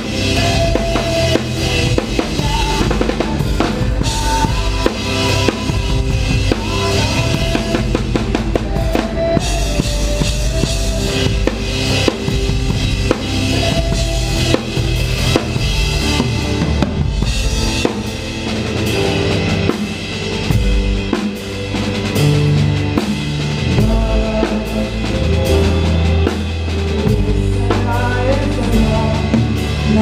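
Live band playing a song, with the drum kit loud and close: a steady run of kick, snare and cymbal hits over bass and pitched instruments.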